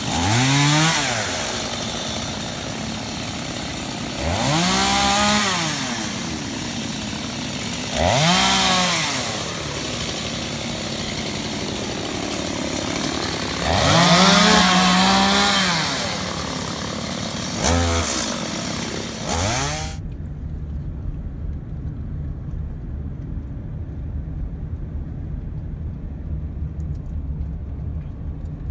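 Chainsaws revving up and dropping back to idle six times as they cut through storm-downed palm fronds. About two-thirds of the way through, this cuts abruptly to a steady low road rumble heard inside a moving car.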